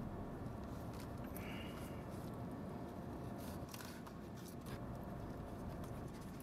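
Rustling, crinkling and a few sharp clicks as a plate of tacos is handled and picked up for a first bite, over a steady low rumble inside a car.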